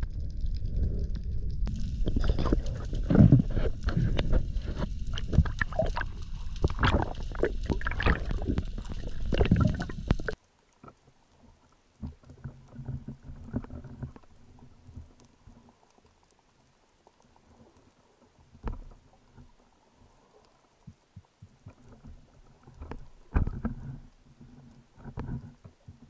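Underwater sound picked up by a spearfisher's diving camera: loud rushing water and knocks for about ten seconds, then a sudden cut to faint underwater ambience with a few soft knocks.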